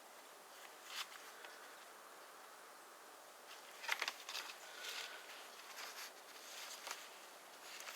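Faint clicking and rustling, like small objects being handled, with a sharp click about a second in and a busier run of clicks and rustles from about four seconds on.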